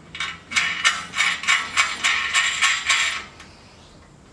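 Steel nut, spring washer and washers being run onto a bolt by hand: a run of light metallic clicks, about three a second, lasting some three seconds.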